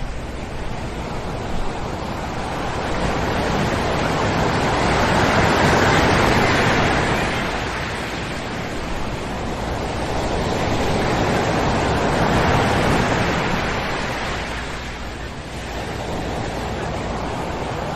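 Ocean surf breaking on a sand beach: a steady wash of waves that swells up twice, about six seconds and twelve seconds in, and then eases off.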